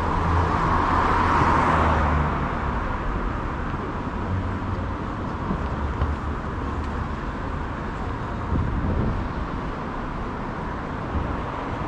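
Urban street traffic noise: a steady hum of road traffic, louder for the first two seconds, then settling to a level background.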